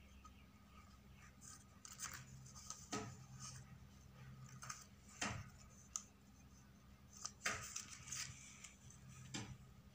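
Cut sheets of stiff paper being handled and pressed together, with a few short rustles and light taps spaced through it, over a faint low hum.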